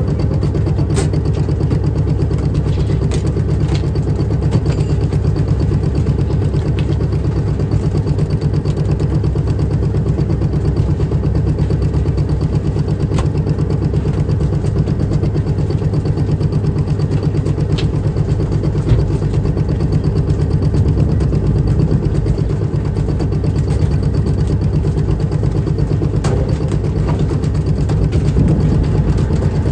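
Fishing boat's engine running steadily at sea, a loud low hum with a fine rapid throb, with a few sharp clicks or knocks here and there.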